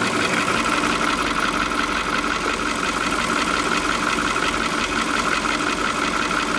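2005 VW Polo 1.4 engine idling steadily with a fast, even clicking running through it, a noise the owner has not been able to identify.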